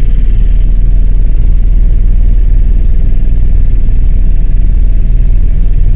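Helicopter cabin noise in flight: the rotor and engine make a steady, loud rumble, heaviest in the low end.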